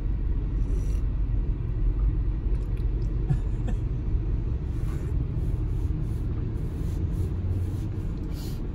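Steady low rumble of a van's cabin with the vehicle running.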